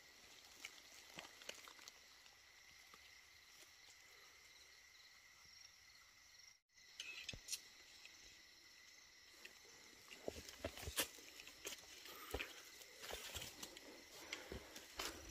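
Quiet night forest with a faint steady high insect tone. From about ten seconds in come scattered crackles and snaps, the loudest sounds here, of someone moving through dry leaf litter and twigs.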